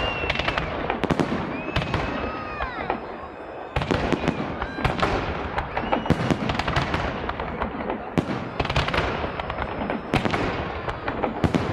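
Festive fireworks salute: dense volleys of sharp bangs and crackles in clusters. Two high whistles bend downward in the first three seconds, and there is a brief lull a little over three seconds in before the bangs pick up again.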